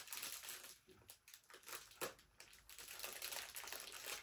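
Plastic packaging crinkling and rustling in short, irregular spells as an item is handled.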